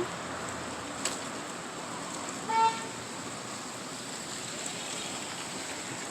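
Steady hiss of falling rain, with a single short beep about two and a half seconds in.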